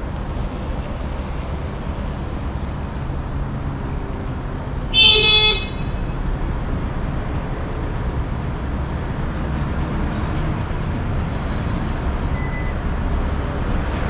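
Steady city street traffic noise, with one short vehicle horn toot about five seconds in, lasting well under a second and standing out as the loudest sound.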